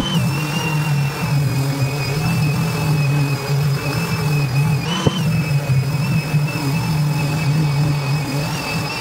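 Electric random orbital sander running steadily against a black walnut table frame, a low hum under a high whine. Its pitch jumps up briefly about five seconds in.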